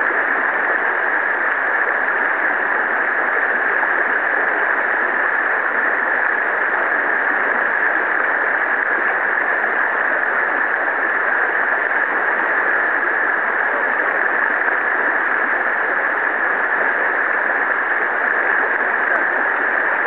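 Steady rush of shallow river water flowing over a rocky riffle, even and unbroken throughout.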